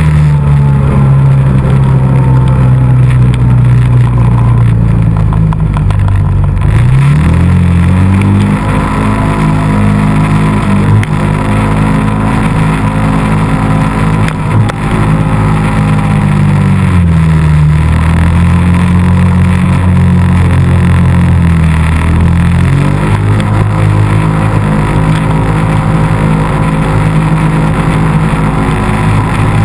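ATV engine running loud under way in snow, its pitch rising as the throttle opens about seven seconds in, falling back after about ten seconds, picking up again briefly, then settling to a steady lower speed.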